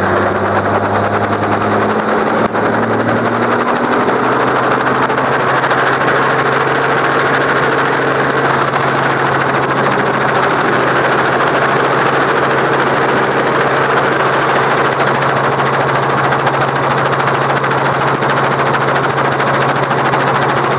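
Helicopter running loudly and steadily, its engine and rotor sound stepping up in pitch over the first few seconds and then holding.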